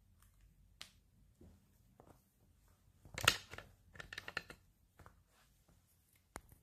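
Quiet handling noises: light taps and rustles. The loudest is a rustle about three seconds in, followed by a cluster of small clicks around four seconds.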